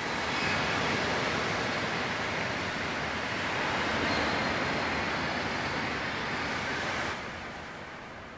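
Surf washing in over a shingle beach: a steady rushing hiss of breaking water that fades away over the last second or so.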